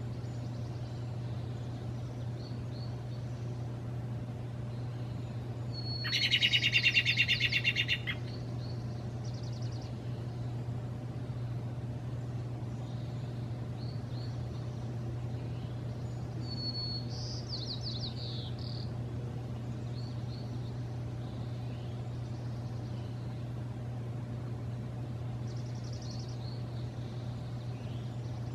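Songbirds singing. One loud, rapid trill lasts about two seconds, starting about six seconds in, and shorter, fainter phrases follow later, over a steady low hum.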